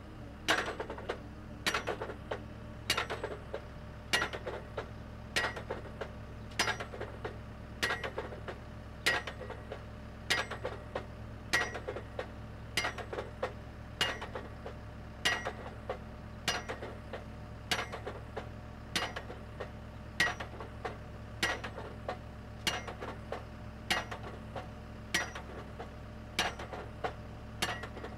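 Automatic drop hammer on a Geoprobe 8040DT rig striking the drive rods in a steady, even rhythm of sharp metallic blows, each with a short ring. The blows drive a split-spoon sampler out of the bottom of the hollow-stem auger into the soil to take a sample. The rig's engine hums steadily underneath.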